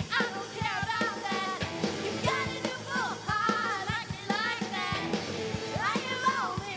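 Show choir singing a rock number over a live band, with a steady drum-kit beat under voices that slide up and down in pitch.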